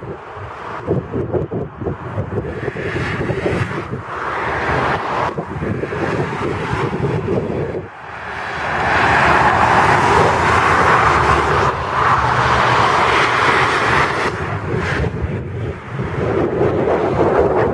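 Motorway traffic passing below at high speed, a steady rush of tyre and engine noise that swells about halfway through as cars come by, with wind buffeting the microphone.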